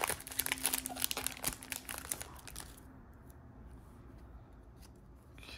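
Foil trading-card pack being torn open and crinkled by hand, dense crackling for the first two and a half seconds or so, then only a few faint clicks as the cards are handled.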